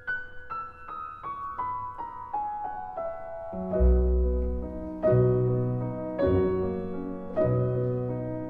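Marching wind band playing a processional piece: a descending run of held notes, then low brass comes in with deep bass notes about three and a half seconds in.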